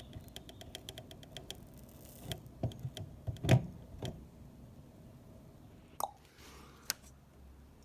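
Scattered light clicks and knocks of small hard objects being handled, starting with a quick run of faint ticks and with the loudest knock about three and a half seconds in.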